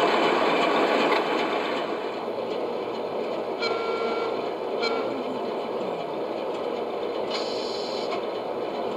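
O gauge model diesel train running on garden track: a loud rumble of motor and wheels for the first couple of seconds, then quieter running. About halfway there are two short high tones, and a low engine tone then falls in pitch as the train eases toward idle.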